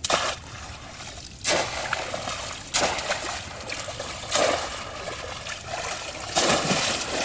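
Water splashing in a regular series of about five splashes, one every second and a half or so, with trickling water between them.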